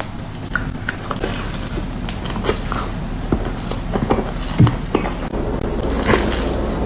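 Close-miked eating sounds: irregular crunching and chewing of food, with many short crackles and clicks.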